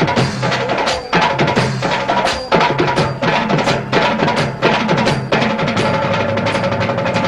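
Percussion-led festival music: sharp, hard drum strokes two or three a second over a held, droning tone, with the strokes thinning out near the end.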